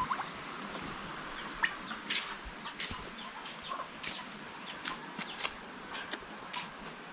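Birds calling: many short, sharp chirps scattered over a steady background hiss.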